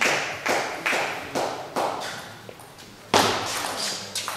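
Table tennis rally: the celluloid ball clicking off rackets and table about twice a second, each click echoing in the hall, then after a short lull one louder, sharper hit about three seconds in.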